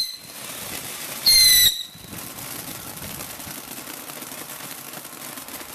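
Ground firework going off: a shrill whistle about a second in, lasting under half a second and falling slightly in pitch, then a steady hiss of spraying sparks with faint crackling.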